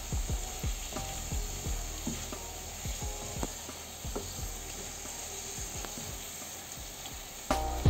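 Beef sausages with tomato, green pepper and onion sizzling in a grill pan while a silicone spoon stirs them, with scattered soft knocks of the spoon against the pan. The sizzling grows louder near the end.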